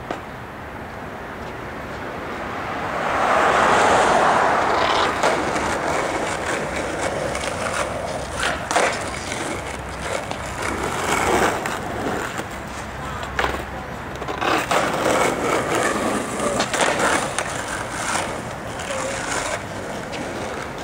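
Skateboard wheels rolling on asphalt, swelling to their loudest about three to five seconds in, followed by a string of sharp clacks and knocks of the board on the pavement, with rolling between them.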